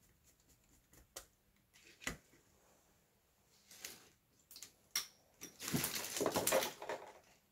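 Handling of a plastic panel temperature controller and its wiring: scattered light clicks and taps, then about a second and a half of dense rustling near the end.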